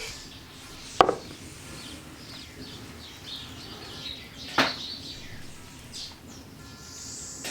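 Two sharp knocks about three and a half seconds apart, with small birds chirping throughout.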